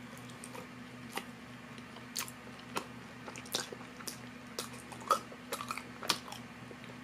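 Close-up chewing of a soft gummy-jelly Popin' Cookin' candy sushi piece: irregular wet mouth clicks and smacks over a steady low hum.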